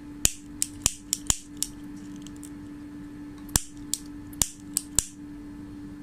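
Disposable lighter being struck over and over to light it: a run of sharp clicks, six in quick succession, then after a pause about five more.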